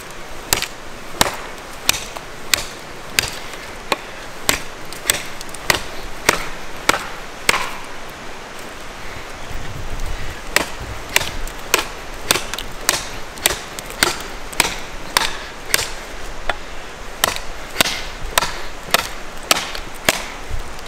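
A large handmade bushcraft knife chopping into a thin standing tree trunk, the blade biting into the wood in steady blows about one and a half a second.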